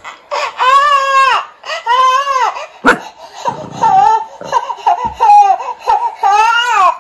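Baby crying in a run of loud wails, each one rising and then falling in pitch, with short breaks between them. A single sharp click sounds about three seconds in.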